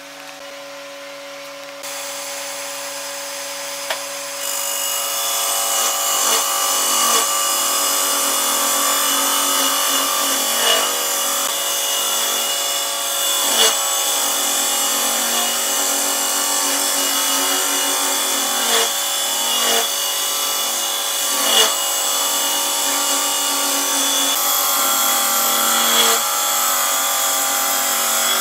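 Wood lathe running, its motor giving a steady hum while a turning tool cuts into the spinning wood with a scraping noise that grows louder a few seconds in, with scattered short knocks.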